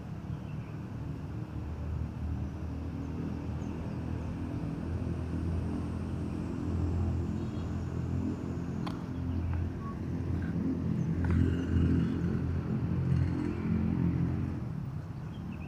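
Low rumble of a vehicle engine, building up through the middle and easing off near the end.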